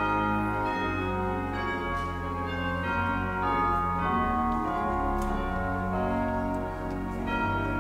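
Church organ playing slow, sustained chords over long-held low bass notes.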